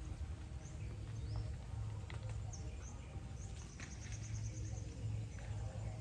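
Birds chirping in short separate calls, with a quick trill near the end, over a steady low rumble and a few light clicks.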